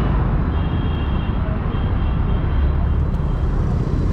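Busy city road traffic: vehicle engines and tyres in a steady, dense rumble.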